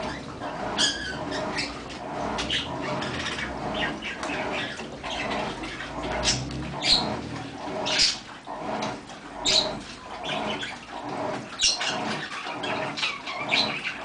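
Mabe 15 kg top-load washing machine in its wash cycle: water and clothes sloshing and splashing in repeated bursts as the drum agitates, over a steady pulsing churn.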